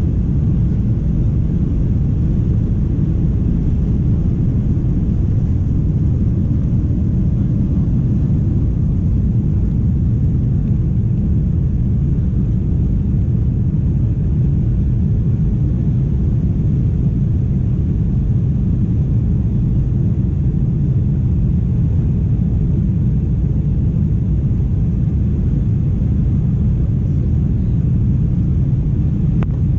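Inside the cabin of a Boeing 747 during takeoff and climb-out: the four jet engines at takeoff power make a loud, steady low rumble that does not change.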